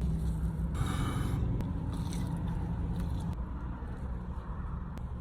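Biting into a crispy breaded chicken tender, a crunchy bite about a second in and another about two seconds in, then chewing, over a steady low hum.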